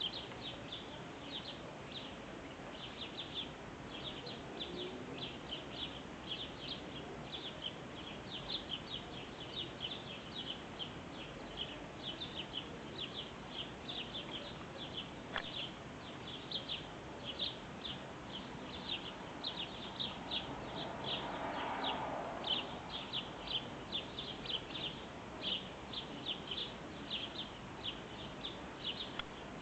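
Birds chirping: a steady stream of short, high chirps, several a second. A brief swell of lower noise rises and fades about two-thirds of the way through.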